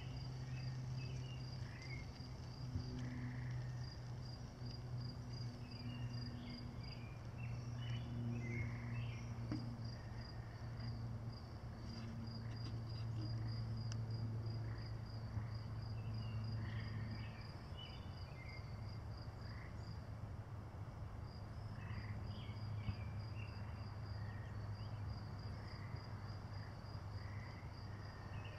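Outdoor ambience: an insect trilling in fast, even pulses at a high pitch, with scattered short chirps and a steady low hum underneath.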